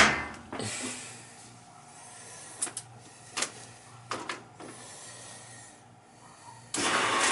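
A knock, then a few clicks as the Maytag Centennial top-load washer's cycle dial and start button are worked. Near the end, water suddenly starts rushing into the tub through the fill valve even though the supply was turned off: the shutoff valve is not holding.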